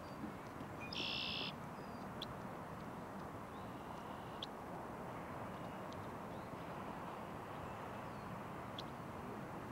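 Steady outdoor ambience at the beach, a soft even rush, with a brief high-pitched sound about a second in and a few faint ticks.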